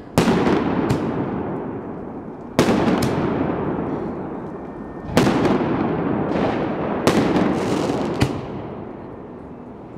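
Aerial fireworks bursting overhead: about eight loud bangs at uneven intervals, each followed by a long rolling echo off the surrounding apartment buildings.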